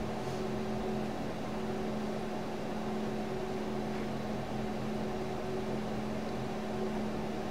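Steady low hum and hiss of room tone, with a few faint constant low tones underneath; nothing starts or stops.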